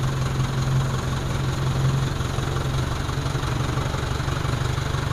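Backhoe loader's diesel engine running steadily at low speed as the machine creeps forward, a constant low drone that eases slightly about two seconds in.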